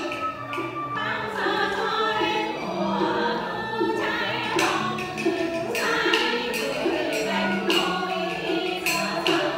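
Vietnamese chèo folk singing of a lullaby melody (hát ru), with the voice bending and sliding in pitch. Sharp percussion clicks mark the beat, more often in the second half.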